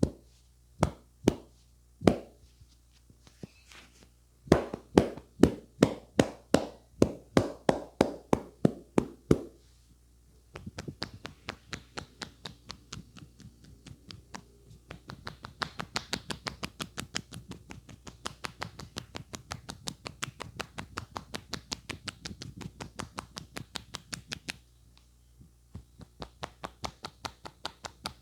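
Hands striking the head in a percussive massage. First come a few sharp slaps, then a run of steady strikes about two a second. After that comes a long run of lighter, faster taps, about five a second, with a short break near the end.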